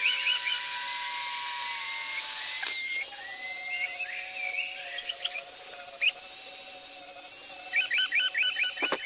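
Handheld electric circular saw running through a wooden plank with a steady high hiss. After an abrupt break about three seconds in, an angle grinder with a flap sanding disc runs against the wood, its motor tone wavering slightly. Rapid chirping trills come in near the end.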